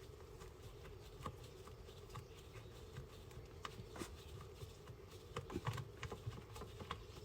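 Faint, irregular light ticks and patters of automatic transmission fluid dripping down from the lowered transmission pan, with a few slightly louder clicks about four seconds in and again near six seconds.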